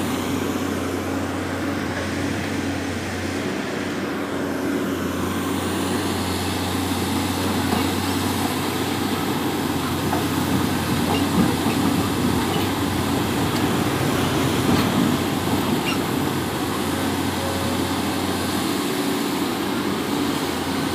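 Pindad Excava 200 hydraulic excavator's diesel engine running steadily under load as the machine digs and moves soil, with a low, even engine hum. The lowest part of the hum drops away near the end.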